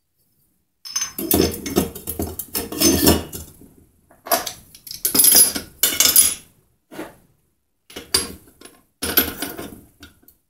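Scrap aluminum pieces clinking and clattering against each other and the sides of a steel crucible as they are dropped in and packed by hand, in several short bursts.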